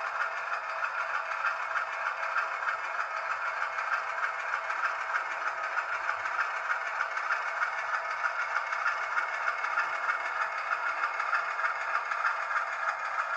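HO scale model diesel locomotive running slowly, its engine sound coming from a small speaker with an even rattling pulse and no low bass.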